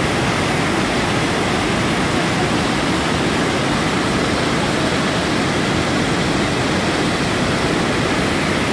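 A waterfall: a steady, unbroken rushing of falling water.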